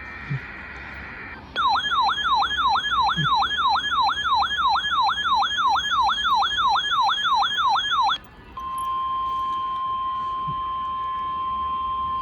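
A handheld NOAA weather alert radio receiving an alert: the tail of the SAME data burst, then the radio's loud warbling alarm rising and falling about three times a second for six or seven seconds. After that comes the steady 1050 Hz weather alert tone, sounding for about four seconds.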